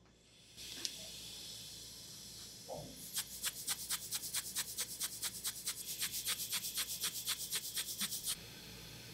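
Record-cutting lathe at work: a steady hiss starts about half a second in, and from about three seconds in a fast, even ticking, about six ticks a second, runs over it until it stops just after eight seconds.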